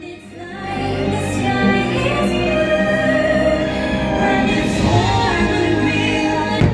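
Orchestral music with a solo singer and a choir, sustained and swelling, with a single sharp bang of a firework burst near the end.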